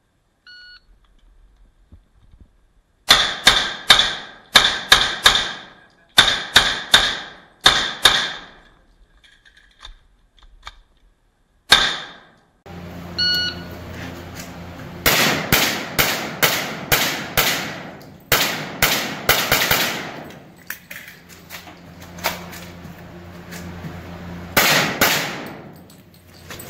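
A shot timer beeps, then a string of gunshots follows, fired mostly in quick pairs with a short echo after each. Another timer beep starts a second string of paired shots about halfway through.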